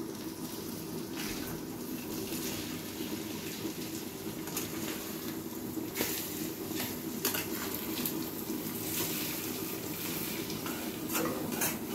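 Metal spatula turning and stirring fish roe and onions in a kadai, with short scrapes and clicks against the pan over a steady sizzling hiss of frying.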